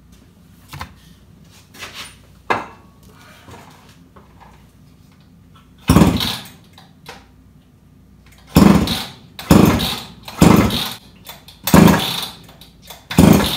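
Jonsered 625 two-stroke chainsaw being pull-started on fuel poured straight into the cylinder: after a few light knocks, six pulls, each giving a short loud burst from the engine that fades out within about a second instead of running on.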